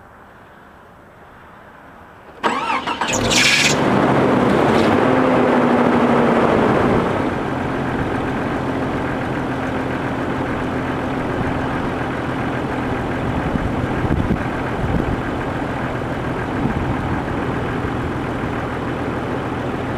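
Car engine cranked briefly by the starter and catching about two and a half seconds in. It runs at a fast idle with its pitch easing down for a few seconds, then settles to a steady idle.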